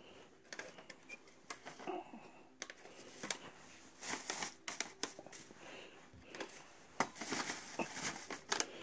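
Irregular crinkling and rustling of a plastic shopping bag, mixed with many small clicks and knocks of things being handled.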